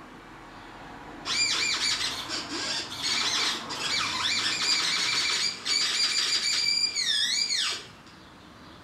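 Electronic chirping and warbling tones played through paper cone speakers, the pitch sweeping quickly up and down in a series of squawk-like calls with a brief break partway through, ending in a steep falling glide near the end.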